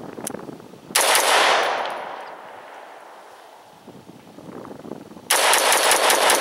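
5.56 AR-15 carbine with a Battlecomp 1-inch muzzle brake/compensator firing: a short burst of shots about a second in, then a quick string of about half a dozen rapid shots near the end. Each group rings out with a long fading echo.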